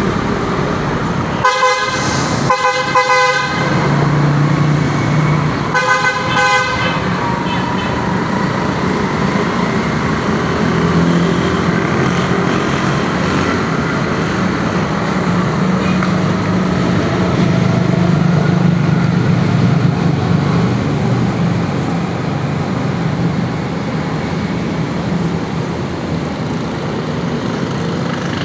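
Three short horn honks, the second a little longer, over a steady motor-vehicle engine hum and traffic noise.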